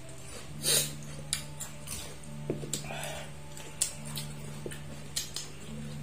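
Cooked shrimp being peeled by hand: scattered sharp crackles and clicks of shell breaking, the loudest about a second in, over a steady low hum.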